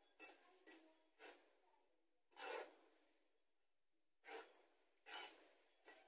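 A small hand scoop scraping through a loose mix of soil and coir pith and against the clay bowl it is being scooped into. It makes a series of short, faint scrapes at uneven intervals.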